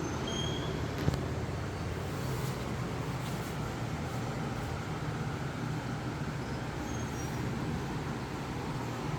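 Steady low rumble, like road traffic or a running engine, with one sharp click about a second in and a few faint, brief high chirps.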